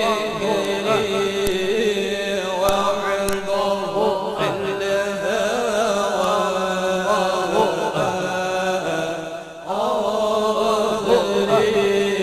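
Men's voices chanting an Islamic devotional song (nasyid) through microphones, the melody gliding and ornamented, with a short break about nine and a half seconds in before the chant resumes.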